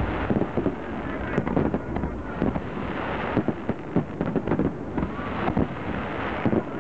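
Fireworks display: a rapid, dense run of aerial shell bursts and crackling, with bangs following one another several times a second.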